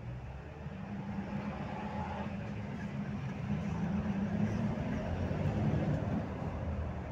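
Bogdan A201.11 city bus heard from inside the passenger cabin: a steady low engine and road drone, growing louder through the middle and easing near the end.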